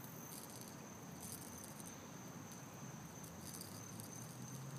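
Faint outdoor ambience: a steady high-pitched chirring of insects such as crickets, with a few brief faint crackles, around 0.3, 1.3 and 3.5 seconds in.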